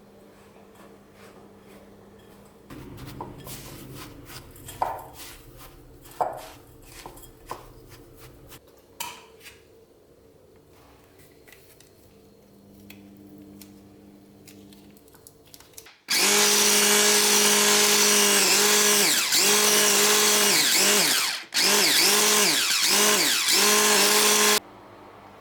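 A small high-speed electric motor runs loudly for about eight seconds, stopping for a moment partway through. Its pitch dips again and again, as if it is working against a load. Before it starts there are a few light clinks and knocks.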